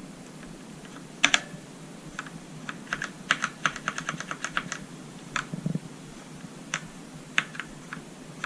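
Typing on a Redragon Ratri K595 mechanical keyboard with Outemu Black linear switches: a few separate keystrokes, then a quick run of clacks about three to five seconds in, then a few more single strokes, over a steady low hiss.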